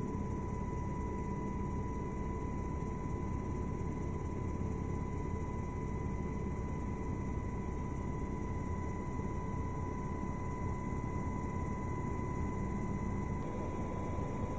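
Helicopter rotor and engine noise heard from on board, a steady low rumble that does not change, with a thin steady high tone over it.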